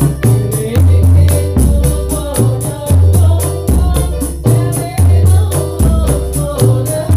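Sholawat sung by a woman through a microphone over rebana frame drums: a deep drum stroke about once a second with quick jingling taps between.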